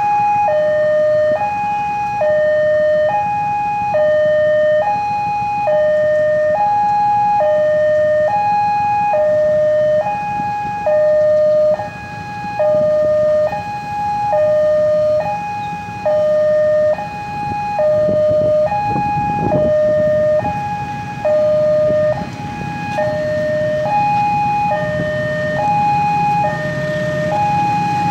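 Railway level-crossing warning alarm sounding its two-tone signal, a higher and a lower tone alternating about once a second, to warn that a train is approaching. A low rumble runs underneath and grows near the end.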